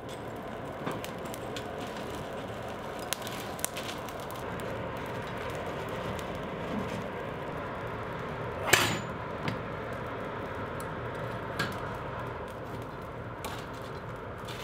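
Coal forge fire burning with a steady rushing hiss while a steel pickaroon head heats in it for a normalizing pass, with scattered crackles and light clinks of tongs on steel. One sharp metal clank comes about nine seconds in.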